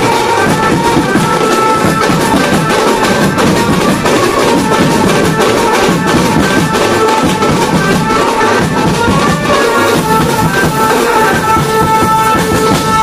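A Mumbai banjo band playing live: fast, dense beating on mallet-struck drums and cymbals under a held melody line.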